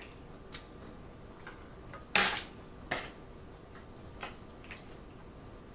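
Eating sounds: a few scattered light clicks and smacks from eating spaghetti, mouth sounds and a metal fork against a glass bowl, the loudest about two seconds in.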